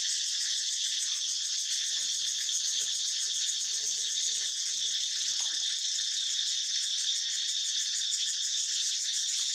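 A steady, dense chorus of insects: a shrill, high buzzing that holds without a break. Faint, low chatter comes through under it between about two and five and a half seconds in.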